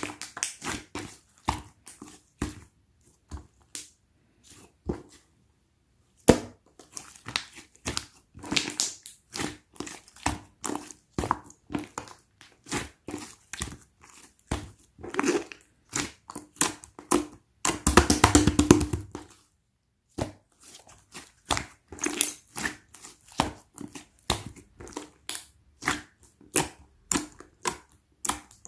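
Pearl slime being squeezed, folded and poked by hand, giving irregular sticky clicks and air-bubble pops, with a dense crackling run of pops a little after halfway.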